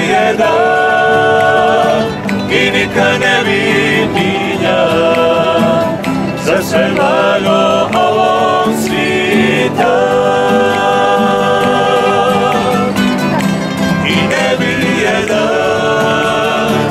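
Group of men singing a song together in several voices, with long held notes in phrases of a few seconds, accompanied by a strummed acoustic guitar and other plucked strings.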